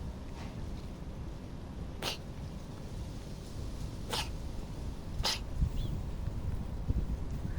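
A cat sneezing three times in short, sharp bursts, the second about two seconds after the first and the third a second later, over a low background rumble.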